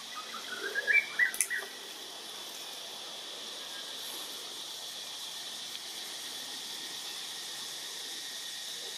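Steady high drone of forest insects. In the first two seconds a quick run of short, high chirping calls grows louder and stops, with a sharp click in the middle.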